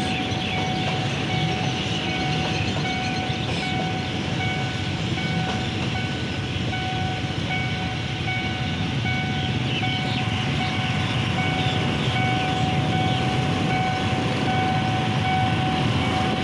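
Passenger train coaches rolling past a road level crossing, wheels clattering on the rails, while the crossing's warning bell rings over and over.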